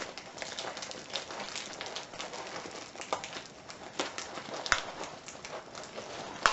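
Hands handling a package's contents in its box: packaging rustles and many small clicks and taps, with one sharper knock about three quarters of the way through.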